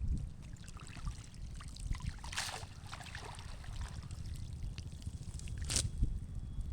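Pond water trickling and splashing, with two louder splashes, one about two and a half seconds in and a sharper one near six seconds, over a low rumble.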